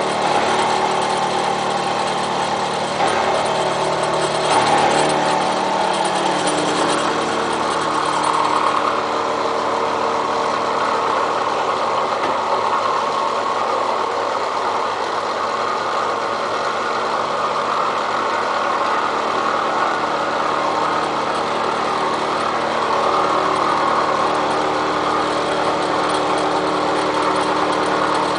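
Milling machine running, its cutter cutting steel railroad rail, with a steady motor hum under a continuous cutting noise. The cutting loses some of its high hiss about nine seconds in.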